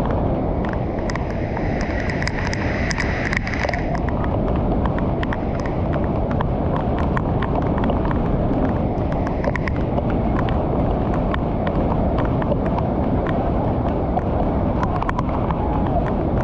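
Muddy floodwater pouring over a low concrete weir into a churning pool: a loud, steady rush of falling and foaming water, with frequent sharp clicks and crackles of splashing.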